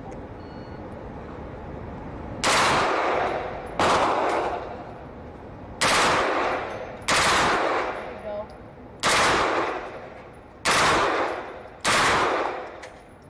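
Fully automatic M4 Commando carbine fired in seven short bursts, spaced about one to two seconds apart. Each burst rings out in a long echoing tail.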